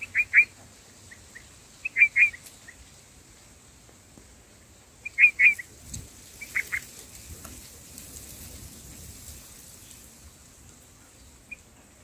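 Bulbul chirping at the nest: short, sharp chirps in quick groups of two or three, four groups over the first seven seconds, then one faint chirp near the end.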